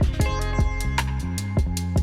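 Background music: a plucked guitar over bass notes with a steady beat.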